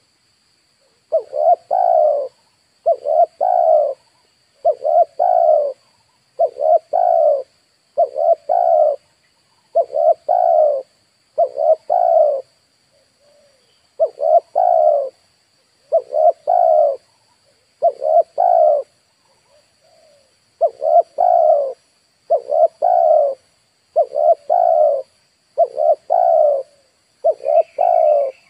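Spotted dove cooing: the same call phrase about a second long, repeated about every two seconds, fifteen times in a row. Near the end a small bird chirps briefly at a higher pitch.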